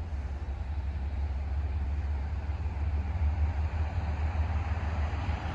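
Low, steady rumble of an approaching freight train led by diesel locomotive MEC 7622, slowly growing louder.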